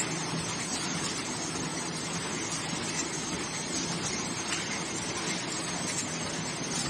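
Eccopac Ares W box-motion flow-wrap packing machine running, a steady mechanical whir and rattle with a faint low hum underneath.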